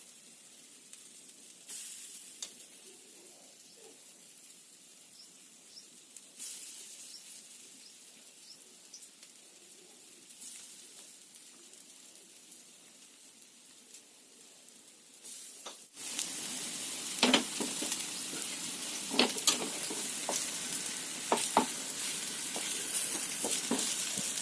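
Soybean-potato tikkis shallow-frying in a little oil in a pan: a faint steady sizzle that, about 16 seconds in, turns much louder, with scattered pops and crackles.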